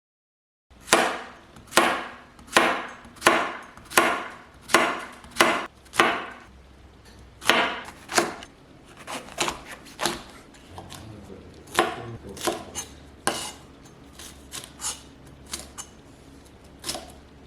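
Kitchen knife chopping on a cutting board: evenly spaced strokes a little under a second apart, then lighter, more irregular cuts.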